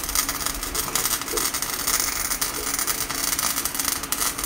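Electric arc welding on a steel boat-trailer guide pole: the arc keeps up a steady crackling hiss.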